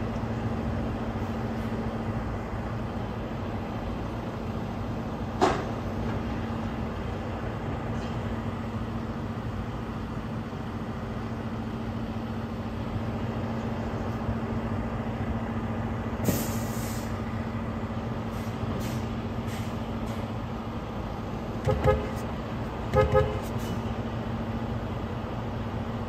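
Steady low hum of idling vehicle engines around a truck loading dock, broken by a sharp click about five seconds in and a short hiss about two-thirds through. Near the end a vehicle horn gives two pairs of short toots, the loudest sounds.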